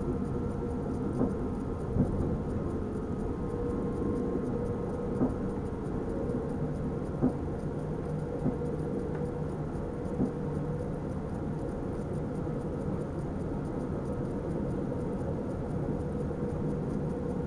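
Steady rumble of an NS Sprinter electric train running along the track, heard inside the driver's cab, with a low hum under it. A few sharp clicks stand out in the first ten seconds.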